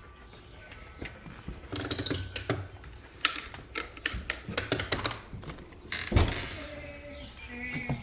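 Scattered knocks, clicks and short creaks, the loudest a single thump about six seconds in.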